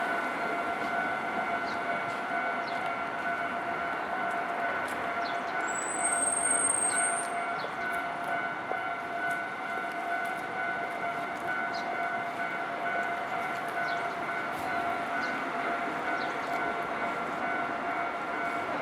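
Japanese railway level-crossing alarm ringing steadily while a train runs through, the running noise of the train beneath it. About six seconds in comes a brief high squeal.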